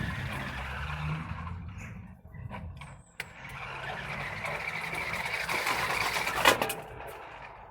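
A remote-control car's motor whirring as it drives over the ground. The sound drops away briefly around two to three seconds in, then picks up again. A single sharp knock about six and a half seconds in is the loudest moment.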